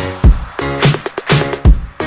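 Background music: an upbeat electronic track with a steady drum beat and a pitched bass line.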